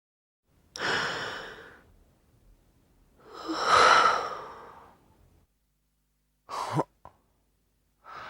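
A person sighing: two long, breathy exhalations, then a shorter sigh a few seconds later that ends in a falling voiced tone.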